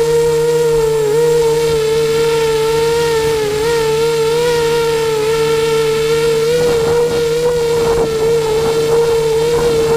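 Eachine 250 racing quadcopter's brushless motors and propellers whining steadily, the pitch wavering slightly with throttle. Rough, gusty rushing noise joins in during the second half.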